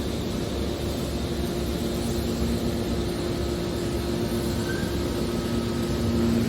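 A machine running with a steady hum: two even low tones over a constant noise.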